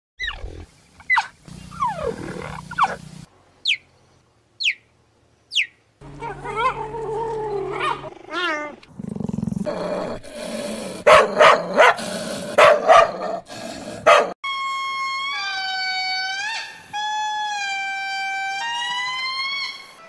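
A run of animal calls: about three short, high, falling chirps of a cheetah, then a dog barking in quick repeated bursts, then a long series of wavering, howl-like calls.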